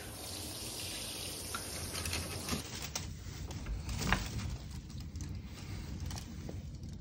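Handheld shower spraying water onto a tiled bathroom floor, running steadily for the first two and a half seconds and then cutting off abruptly. A few light clicks and one louder knock follow about four seconds in.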